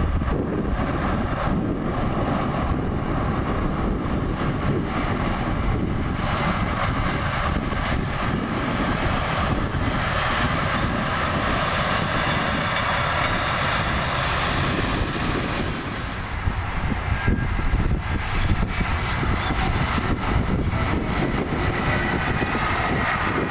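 A train rolling past with a continuous rumble. A steady whine grows stronger over the last several seconds.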